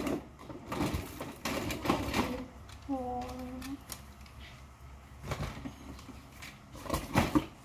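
Coated wire clothes hangers clicking and clattering against each other as they are pulled apart and counted, in uneven bursts with the loudest clacks near the end. A brief pitched hum-like sound comes about three seconds in.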